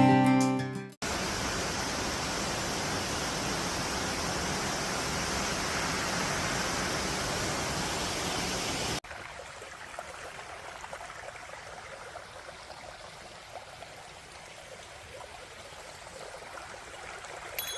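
Steady rush of flowing water, like a mountain stream, after guitar music fades out in the first second. About halfway through it cuts off suddenly to a much quieter outdoor ambience with faint scattered ticks.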